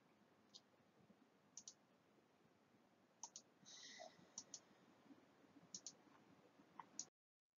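Near silence: faint room tone with a scattered handful of soft, short clicks, a few of them in quick pairs, then dead silence for the last half second.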